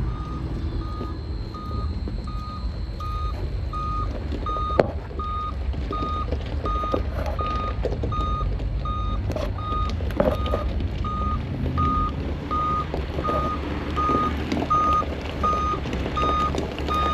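Dump truck's back-up alarm beeping at a steady, even rate over its engine running, as the truck reverses in to drop a load of asphalt millings.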